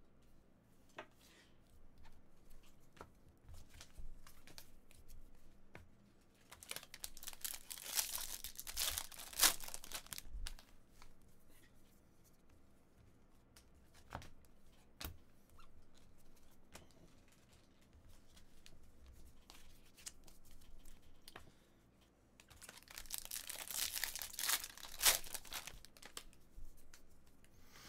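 Bowman Chrome Draft baseball card packs being torn open, their foil wrappers crinkling, in two bursts of a few seconds each, about a quarter of the way in and again near the end. Faint ticks and taps sound between them.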